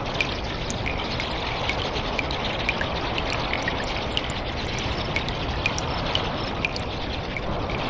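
Cave ambience of water dripping and trickling: many quick, high-pitched plinks of falling drops over a steady rush of running water.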